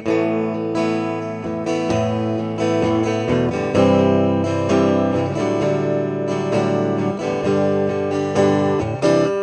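Parker Nitefly guitar played through an Epiphone Regent 230 amplifier with a clean tone: chords strummed and notes picked, changing every second or so.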